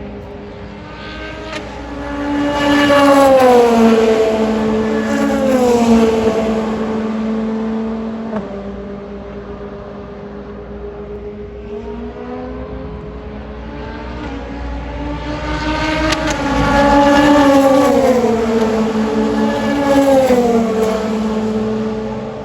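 Race car engines passing at speed twice, about thirteen seconds apart. Each pass swells to a loud peak, and the engine note falls in pitch as it goes by. A steady engine hum runs underneath.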